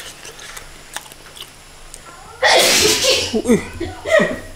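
A man chewing food with faint mouth clicks. About two and a half seconds in, he lets out a sudden loud burst of breath and voice, like a sneeze, followed by several short vocal sounds.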